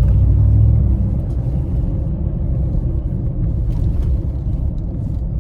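Chevy Silverado's 5.3 V8 with a Flowmaster Outlaw catback exhaust, heard from inside the cab with the window up: a steady low rumble, a little louder for the first second.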